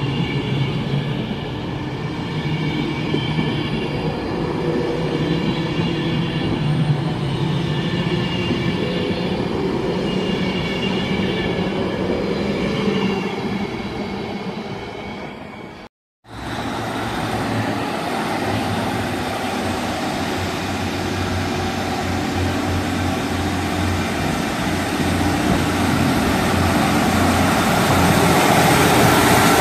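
Electric Class 390 Pendolino train pulling away from the platform. After a sudden break about two-thirds of the way through, Class 150/2 and Class 142 diesel multiple units pulling out, growing louder near the end.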